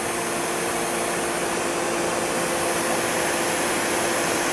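Giraffe Tools Grandfalls Pro electric pressure washer running at full pressure with the trigger held. It gives a steady motor-and-pump hum under a broad spray hiss while its outlet gauge reads about 1700 PSI.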